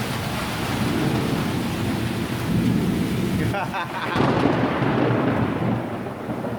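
Heavy thunderstorm rain pouring down, a dense steady hiss over a low rumble. The high hiss dulls a little just past halfway.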